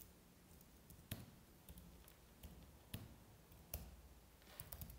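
Faint computer keyboard keystrokes: a few isolated clicks about once a second, with a short quick run of keys near the end.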